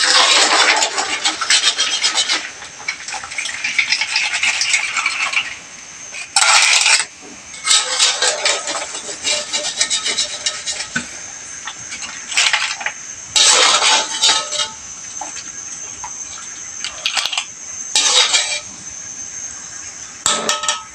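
Wire strainer and tongs clinking and scraping against a large aluminium wok in bursts as boiled shrimp, mussels and corn are lifted out of the hot cooking water.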